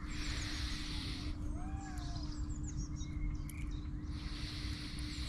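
Outdoor ambience: several birds calling, with a few short rising-and-falling cries and small high chirps, over a low rumble of wind on the microphone.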